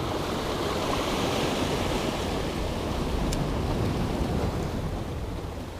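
Rough surf washing steadily, with wind on the microphone; a single faint tick about three seconds in.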